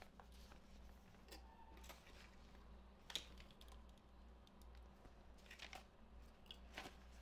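Near silence: a steady low hum with a handful of faint, scattered clicks and light rustles, the loudest about three seconds in.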